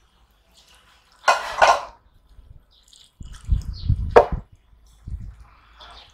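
Hands mixing dal into rice on steel plates: wet, sticky food sounds in short bursts, the loudest about a second in and again around three to four seconds in, with a sharp click near four seconds.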